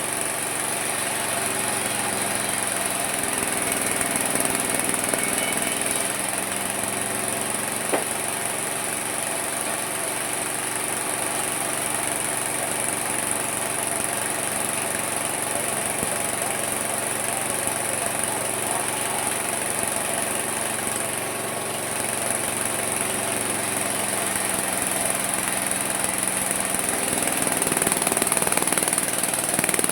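Homemade mini sawmill running steadily, its motor humming under a constant high hiss, the pitch shifting slightly now and then. A single sharp click about eight seconds in.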